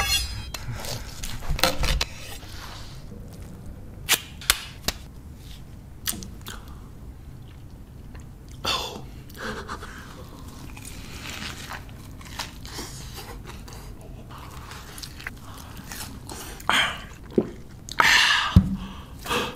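Close-up eating sounds of a person biting into and chewing a hamburger with a crunchy Cheetos crust. There are a few sharp crunches about four seconds in, and longer crackly chewing stretches later on.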